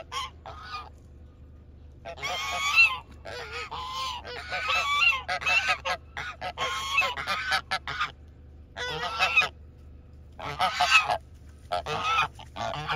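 A flock of barnyard fowl calling: loud, harsh, pitched calls in overlapping bursts of a second or two, with short pauses between.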